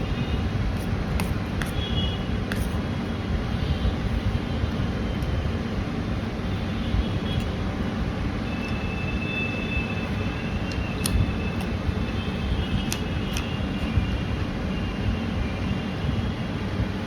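A person eating: a few sharp clicks and crunches of chewing and handling food, over a steady low rumble.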